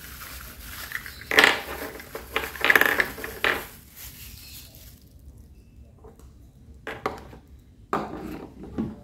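Thin plastic wrapping crinkling as it is pulled off small wooden legs, loudest in the first few seconds. Near the end come a couple of light knocks as the wooden legs are handled on the table.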